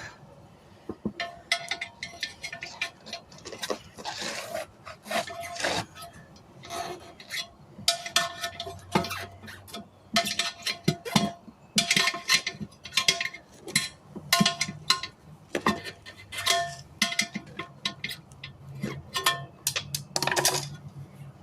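Metal tire tools clinking and clanking against a steel wheel rim as a tire is worked off by hand: many irregular sharp strikes, some leaving a short ring.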